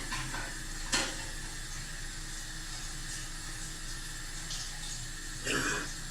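Steady hiss of running water, as from a tap, with a brief knock about a second in and a short cough near the end.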